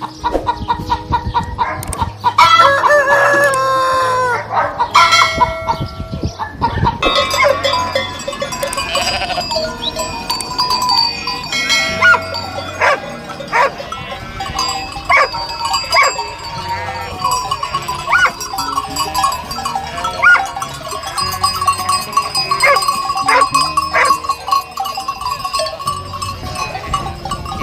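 A rooster crowing a few seconds in, followed by a busy mix of farm-animal calls, with background music underneath.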